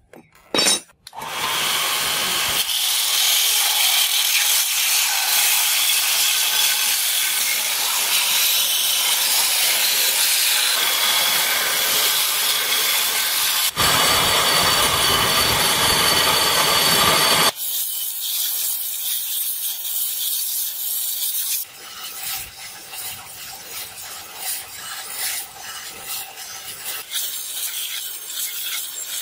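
Belt grinder grinding a forged iron blade blank against its abrasive belt, taking the black forge scale off to bright metal: a loud, steady, rasping hiss. The sound changes abruptly a few times and is quieter and more uneven over the last third.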